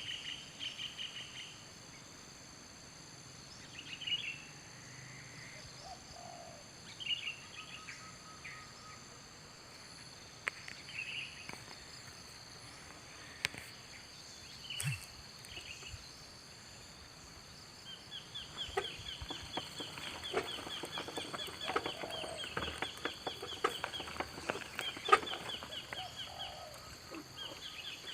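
Wild birds calling in scattered short calls, then a long run of fast, rattling trills in the second half, over a steady high-pitched drone.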